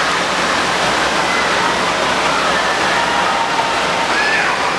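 Steady rush of moving water in an indoor water park's lazy river, with faint distant children's voices calling over it.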